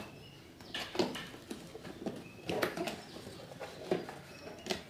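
Corrugated cardboard box flaps being folded open and handled by hand, with four sharp scrapes and taps.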